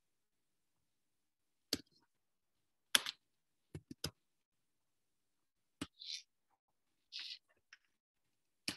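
Computer mouse and keyboard clicks: scattered single sharp clicks, a quick run of three near the middle, and two brief soft rustles between them.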